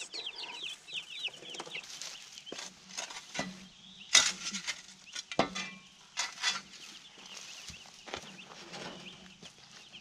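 Meat-bird chicks peeping rapidly for the first couple of seconds, then a shovel scraping and knocking in the dirt a few times, loudest about four seconds in.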